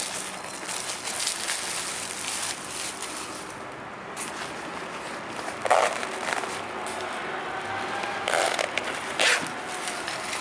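Clear plastic bag crinkling as a fabric case is handled inside it and pulled out, then a few short sharp rasps as the case's zipper is worked open.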